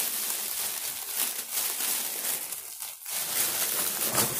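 Shiny red gift wrapping paper crinkling and rustling as it is handled and pulled open, with a brief lull about three seconds in.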